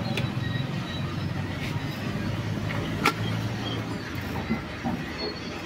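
A steady low engine-like hum runs in the background and fades after about four seconds, with one sharp click about three seconds in and a few lighter knocks near the end.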